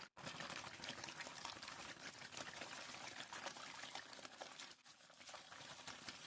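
Water pouring and splashing in a dense patter of small splashes, breaking off briefly just before five seconds in.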